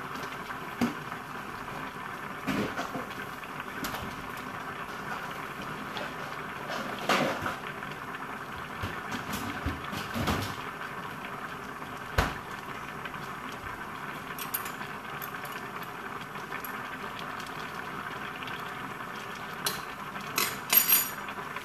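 A pot of soup simmering steadily on a gas stove, with scattered clinks and knocks of dishes and utensils being handled; a small cluster of sharper clatters comes just before the end.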